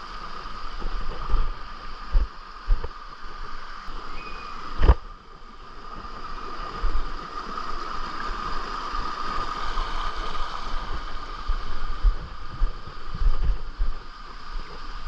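Outdoor ambience with a steady high hum, broken by repeated low thumps of wind or handling on the microphone. There is one sharp knock about five seconds in.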